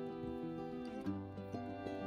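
Instrumental background music of held notes; a new, lower bass note comes in about halfway through.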